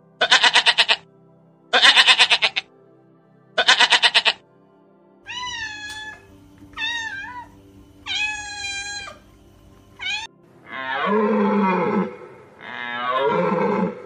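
Domestic goat bleating three times, each bleat a loud, fast-wavering cry, followed by a cat meowing three times in clear rising-and-falling calls. Near the end come two longer, lower, rougher animal calls.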